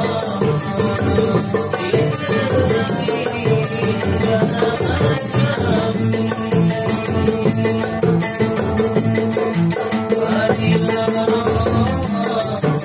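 Small acoustic band playing a song: strummed acoustic guitar, a second plucked stringed instrument and hand drums, with an even shaker-like rattle on the beat and a man singing.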